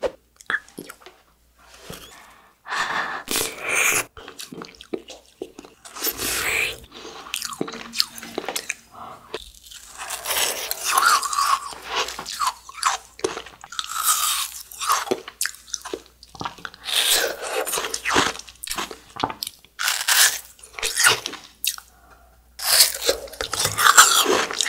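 Close-miked biting and chewing of a frozen cup treat: irregular bursts of sharp, icy crunches with short quiet pauses between bites.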